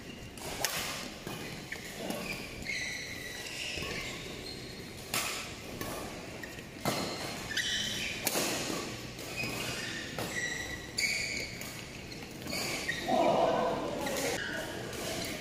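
Badminton rally in a large echoing hall: sharp cracks of rackets striking the shuttlecock every second or two, with sneakers squeaking on the court mat between shots.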